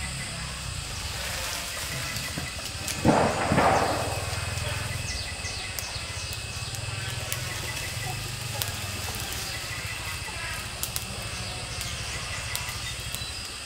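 A small fire of dry bamboo strips and leaves catching light, with scattered small cracks and a brief louder rush about three seconds in.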